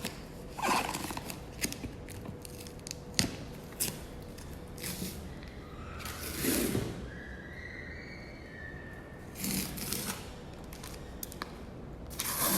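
Cardboard parcel being opened and unpacked by hand: scattered snips, clicks, scrapes and short rustling bursts of tape, cardboard and packaging.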